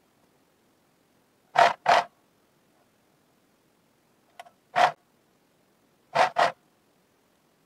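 Domestic sewing machine stitching in short spurts, two quick spurts at a time, three times over, as elastic is sewn onto knit sock fabric.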